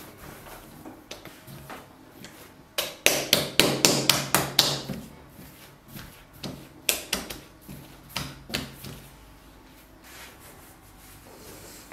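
Bread dough being kneaded and rounded by hand on a wooden tabletop: a quick run of knocks and slaps about three seconds in, then a few scattered knocks, with soft rubbing of dough and hands between them.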